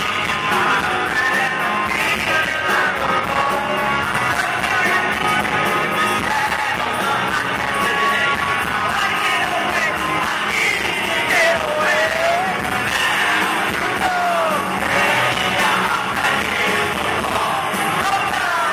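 Live rock band playing loudly with the lead singer's voice over guitars and drums, heard from the crowd.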